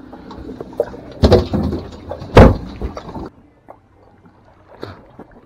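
Two heavy thumps about a second apart, the second the louder, over a rough background noise that cuts off abruptly about three seconds in.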